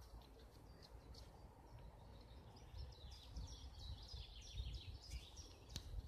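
Faint woodland birdsong: a songbird's run of quick high notes in the second half, over a steady low rumble, with a sharp click near the end.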